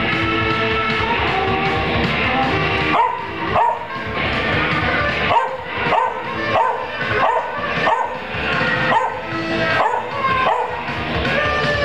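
Pembroke Welsh Corgi howling along to a rock song with saxophone, in a run of short, repeated howls starting about three seconds in.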